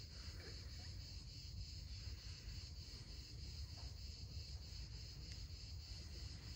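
Crickets chirping in a steady, pulsing chorus, over a low rumble.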